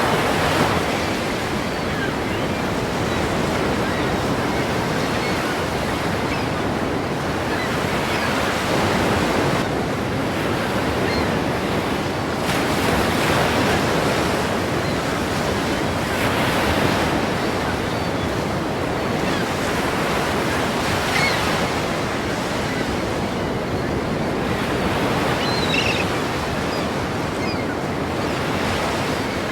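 Ocean surf breaking against a pier, a steady wash that swells every few seconds as each wave comes in. A few faint, short high chirps come in the last third.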